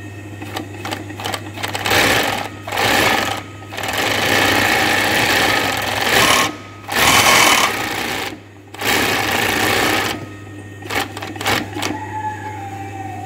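Kansai Special DFB-1412 multi-needle chainstitch sewing machine sewing a test run on fabric, to check for skipped stitches after needle, looper and feed-dog setup. It stitches in several runs with short pauses between them, and the motor hums steadily throughout. Shorter runs come near the end.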